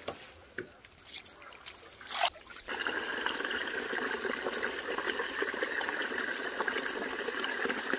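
Water trickling steadily as it runs through a small gap in a mud bank into a muddy ditch, coming in about three seconds in. Before that, faint rustling and a brief swish.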